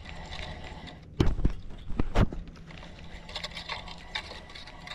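Close handling noise from a spinning rod and reel held up against the microphone. There are heavy bumps about a second in and again about two seconds in, then small clicks and rustle as the reel is worked.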